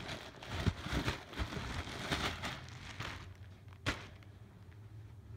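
Clear plastic shirt bag crinkling and rustling in uneven bursts as it is handled and opened, dying down after about three seconds, with one sharp click about four seconds in.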